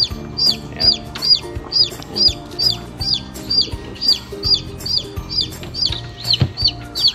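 A chick peeping, one short high call after another at an even pace of about two a second, over background music. A low thump comes about six seconds in.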